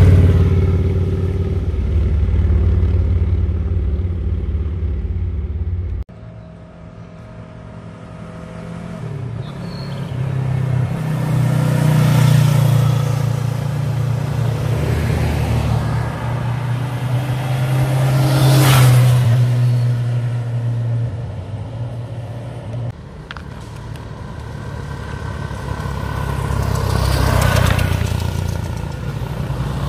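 Motorcycles riding past one after another, in separate cuts. First a large touring motorcycle with a low rumble, cut off abruptly. Then a motorcycle that approaches, grows loud and passes about two-thirds of the way through, and finally a small motorcycle passing near the end.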